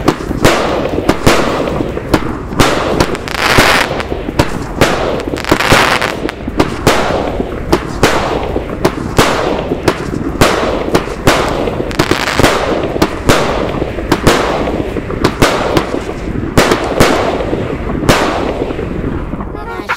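Infinity Box 56-shot XL aerial shell cake firing a continuous volley of loud booming breaks. Sharp bangs come every second or so, often closer together, with a noisy hiss between them.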